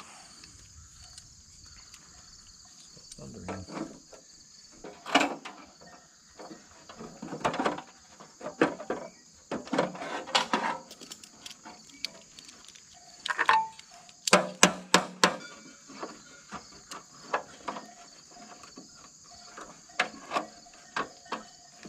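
Steady chirring of crickets, with scattered metallic clicks and clanks of hand tools, a ratchet and wrenches working bolts on an old tractor's radiator and shroud. The loudest part is a quick run of sharp knocks about fourteen seconds in.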